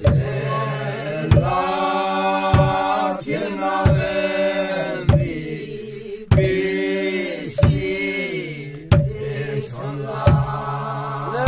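Group of men and women singing a traditional dance song in unison, in long held phrases with short breaks. A barrel-shaped hand drum is struck steadily, about one beat every 1.3 seconds.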